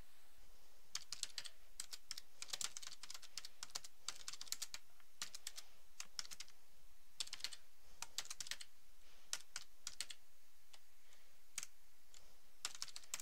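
Typing on a computer keyboard: quick runs of keystrokes with short pauses, thinning out about three-quarters of the way through, then a brief final run near the end.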